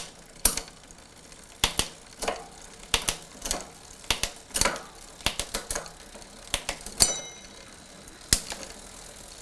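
Gear changes on the Mokwheel Asphalt e-bike's 7-speed drivetrain: a series of sharp, irregular clicks from the shifter and the chain dropping across the rear cassette cogs as it shifts back down, one of them with a brief metallic ring about seven seconds in. The derailleur is shifting cleanly after its cable tension was adjusted.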